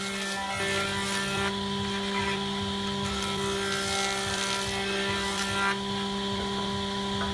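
Electric jointer running with a steady hum while a board is fed across its cutterhead. The hiss of the shaving swells and fades as the board passes over.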